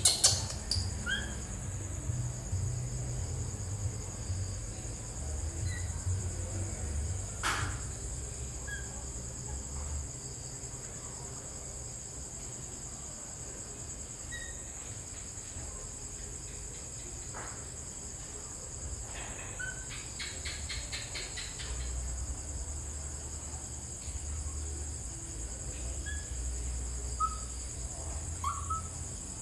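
Steady high-pitched drone of insects, with short bird chirps every few seconds. A few sharp clicks or knocks cut in, one of them a quick rattling run of clicks about two-thirds of the way through.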